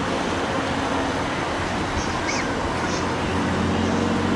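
Twin turboprop engines of an OV-10B Bronco flying overhead, a steady rushing drone, with a low even hum coming up near the end.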